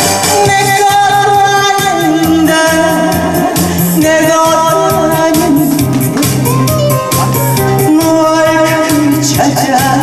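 A woman singing into a handheld microphone over an accompaniment track with a steady beat, amplified through a PA speaker. Her long, held notes waver with vibrato.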